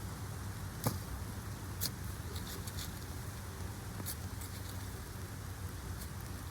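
Loose soil pattering with a few sharp small clicks and knocks as potatoes are dug and sorted from garden earth by hand, over a steady low background hum.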